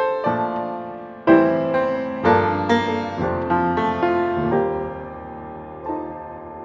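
Jazz piano background music: chords and a melody line, with a strong chord about a second in, then notes dying away toward the end.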